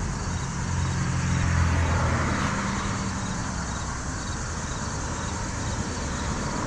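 A road vehicle driving past on the adjacent road: engine hum and tyre noise that swell and fade within the first two seconds or so, followed by steady road traffic noise.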